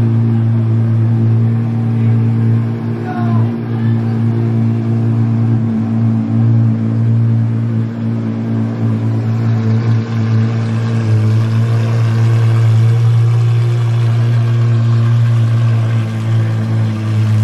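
Apollo Intensa Emozione's naturally aspirated 6.3-litre V12 idling steadily, with a deep, even drone and only slight wavering in speed.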